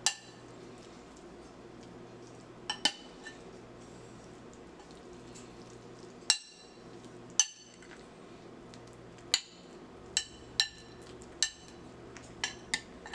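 Metal kitchen utensil clinking against cookware while food is stirred or served: about a dozen sharp, ringing clinks at irregular intervals, several in quick pairs near the end, over a steady low hum.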